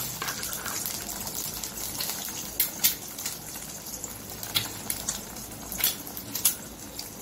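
Beaten eggs frying in hot oil in a kadhai: a steady sizzle with a few sharp crackles and pops.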